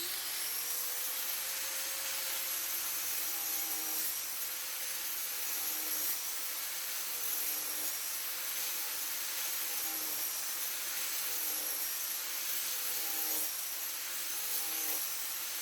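Angle grinder spinning a Kutzall carbide shaping dish, abrading the end grain of a spalted silver birch log. A steady high whine sits over a rasping hiss, and the motor's pitch dips a little every second or two as the dish bites into the wood.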